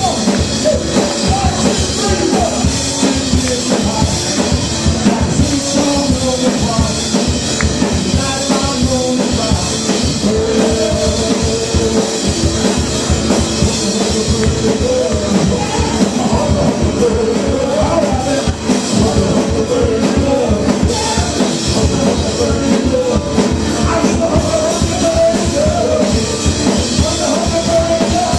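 Live rock band playing, with a drum kit keeping the beat under a wavering melody line.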